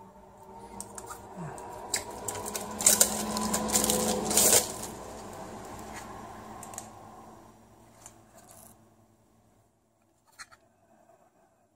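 Clear plastic film crinkling and tearing as it is peeled off a small USB charger by hand. The crackling is loudest a few seconds in, then dies away, leaving a couple of short clicks near the end.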